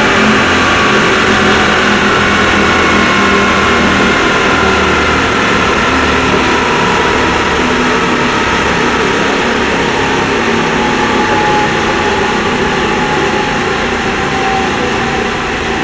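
Volkswagen Passat running on a chassis dynamometer, engine and rollers giving a loud, dense, steady noise whose pitch and level ease down slowly.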